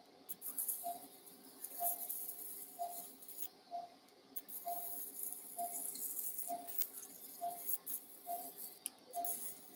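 Monopolar electrosurgical pencil cutting through muscle: the generator's steady activation tone with a faint high crackling hiss, pausing briefly about three and a half seconds in. Over it, a patient monitor gives a short pulse beep about once a second, with each heartbeat.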